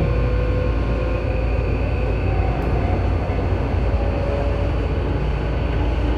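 Tobu 9000 series train running between stations, heard from above the armature-chopper control of car MoHa 9204: steady low rumble of wheels on rail with several steady whining tones. This car's chopper gives an abnormal noise.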